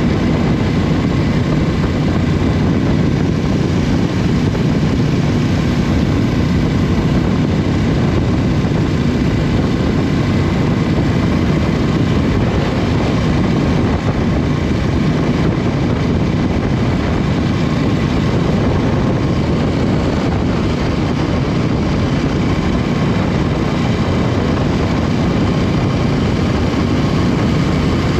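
Aprilia RS 660's parallel-twin engine running at a steady pace on the move, mixed with heavy wind rush over the microphone. No revving or gear changes stand out.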